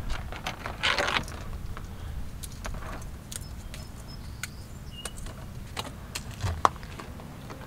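Scattered small clicks and a brief rustle about a second in, over a faint steady low hum.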